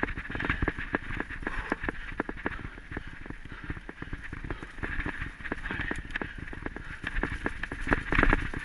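Rapid, irregular knocks and jolts of a body-worn camera bouncing down a rough, muddy trail at speed, several a second, over a steady rush of wind on the microphone.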